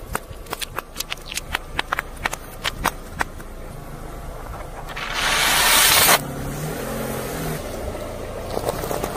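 Car tyre rolling over and crushing small objects: a quick run of sharp pops and cracks for the first three seconds, a loud rushing burst lasting about a second around the five-second mark, and a few crunches near the end.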